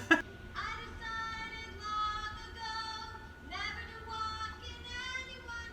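Music of long, held notes with rich overtones, starting about half a second in, with a new phrase beginning about three and a half seconds in.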